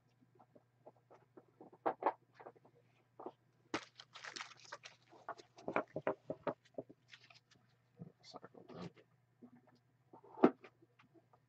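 Irregular rustling, clicking and tapping of trading cards being handled and put away into a sorting box, with one sharper knock near the end, over a faint steady low hum.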